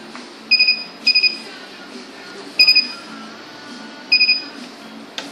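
Menno DP 5100e banknote counter sounding its alarm: four short bursts of rapid high beeps, the first two close together, the rest about a second and a half apart, while an error code shows on its display. A click comes near the end.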